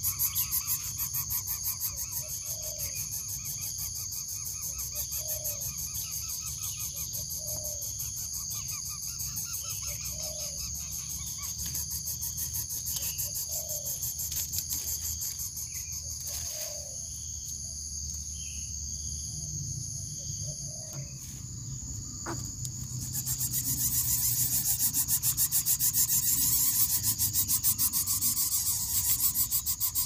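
Steady, shrill insect chorus of crickets with a fast even pulsing, growing louder about three-quarters of the way through. Under it, a faint short low call repeats every two seconds or so over the first two-thirds.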